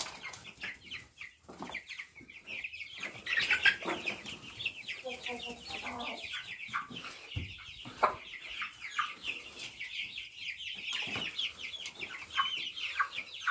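Chickens clucking as they feed, over a constant rapid chatter of high, short peeping calls.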